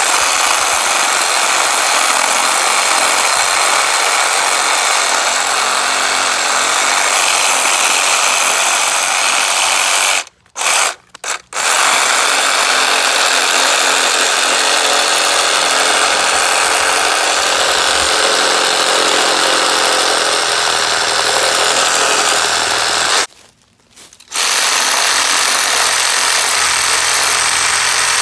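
Hyper Tough 20 V cordless reciprocating saw running and cutting through tree limbs. The motor stops about ten seconds in, gives two short bursts, then runs on, and stops again for about a second later before resuming.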